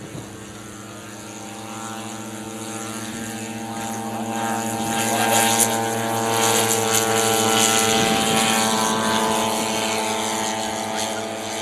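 Large radio-controlled model DC-3 Dakota's twin propeller engines at full power on its take-off run. A steady, many-toned drone grows louder as the plane rolls past and lifts off, then fades as it climbs away.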